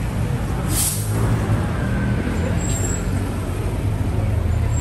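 Street traffic with a large vehicle's engine running low and steady, and a short hiss of a bus's air brakes about a second in.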